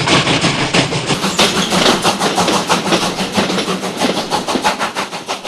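A train in motion, running along the track with a rapid, even rhythm of clacks over a steady rushing noise, slowly getting quieter.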